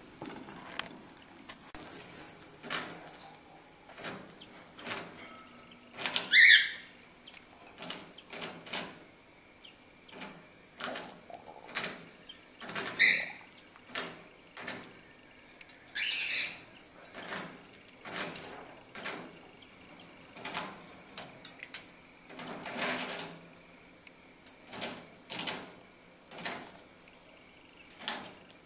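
A cockatiel hen and her chicks in the nest, with constant light scratching and shuffling in the nesting material. Three short calls stand out, the loudest about a third of the way in.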